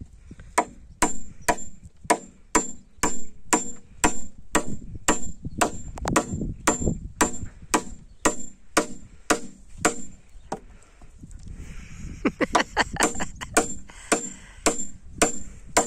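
Claw hammer driving nails into a timber beam on a wooden post. The blows come steadily, about two a second, each with a sharp metallic ring. They stop for about two seconds some two-thirds of the way through, then start again.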